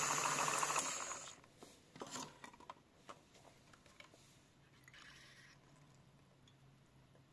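A washing machine's electric motor running with a steady hum and high whine, cutting off about a second in. Scattered light clicks and knocks follow over a faint remaining hum.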